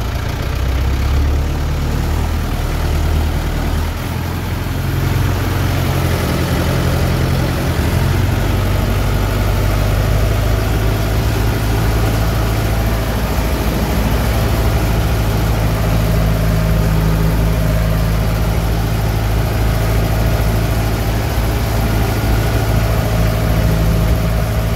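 Farm tractor's diesel engine heard from inside the cab, running steadily while pulling a loaded manure spreader across a field. Its note shifts about four to six seconds in, then holds steady.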